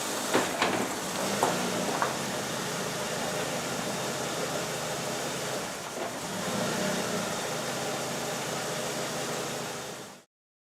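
Car engine running steadily, with a few sharp knocks in the first two seconds and a slight rise in engine sound around the middle; the sound cuts off abruptly near the end.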